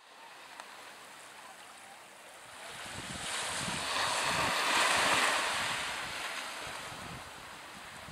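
Sea surf washing on the shore: a rushing wash that swells to a peak about halfway through and then eases off. Wind buffets the microphone with a low, uneven rumble.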